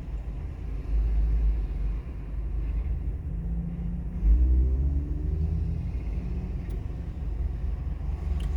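Low, uneven rumble of background noise that swells about four seconds in, with a faint sliding tone in the middle.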